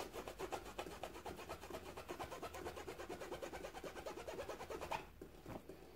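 A microfiber cloth rubbed briskly back and forth over a comb, charging it with static. The strokes come fast and even, about six a second, and stop about five seconds in.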